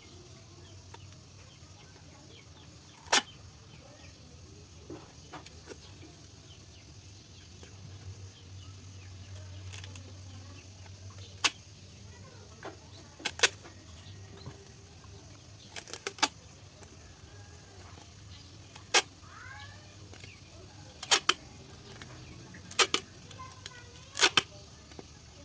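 Scattered sharp clicks and knocks, about a dozen at irregular intervals and more frequent in the second half, as two tin cans are stacked and bound together with tape.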